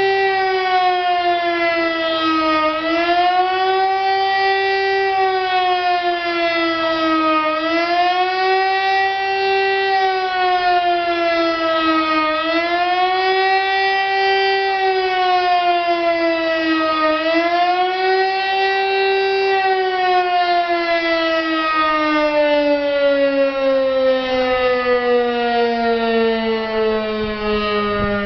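DS977 civil-defence siren sounding the German 'Warnung' test signal: a loud wailing tone that rises and falls about every five seconds. From about two-thirds of the way through it stops wavering and slides steadily down in pitch as the siren winds down.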